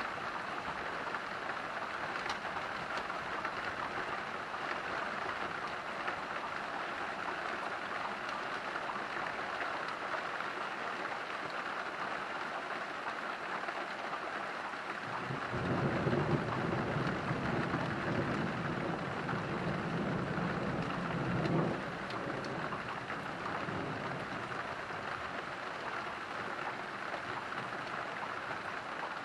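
Steady rain falling, with a low rumble of thunder that starts suddenly about halfway through, lasts around six seconds and then fades out quickly.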